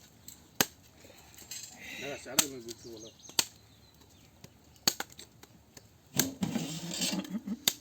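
A blade chopping into a tender coconut: about six sharp knocks spaced a second or two apart, with low voices talking between them.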